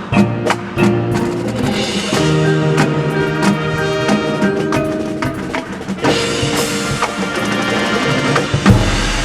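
High school marching band playing: wind chords over drum line and percussion strokes. Near the end there is a loud accented hit that leaves a low note ringing.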